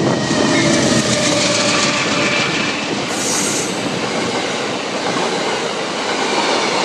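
Amtrak passenger train passing close at speed: a GE P42 diesel locomotive going by, then the steady rush and rumble of Amfleet coaches' wheels on the rails. A brief high-pitched squeal comes about three seconds in.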